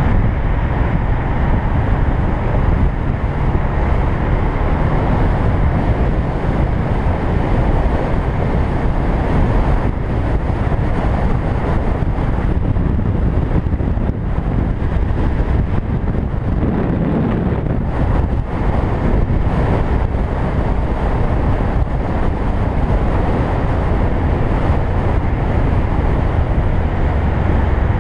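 Wind rushing over the microphone of a motorcycle-mounted camera while riding at speed, steady throughout, with the motorcycle's engine and road noise underneath.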